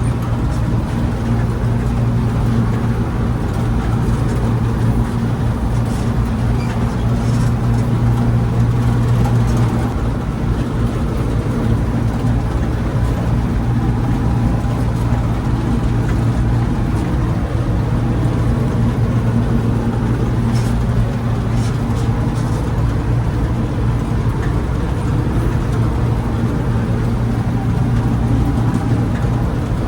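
Bizon combine harvester's diesel engine running steadily, a constant low drone.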